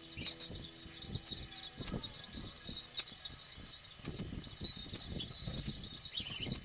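Colored pencil scratching across sketchbook paper in quick, repeated shading strokes.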